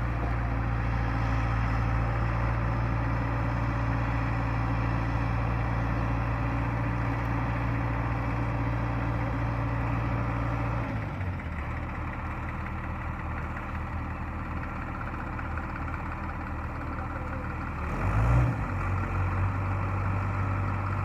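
Heavy diesel engine running steadily, its note shifting lower about halfway through, with a brief surge of revs near the end before settling back.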